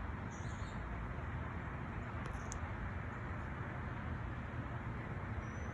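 Steady outdoor background noise with a low rumble, and a faint high chirp about half a second in.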